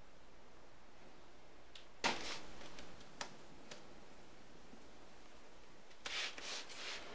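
Light clicks and short scraping rustles from a chicken's claws shifting on a windowsill: one sudden scrape about two seconds in, a couple of taps after it, then a cluster of scrapes and taps near the end.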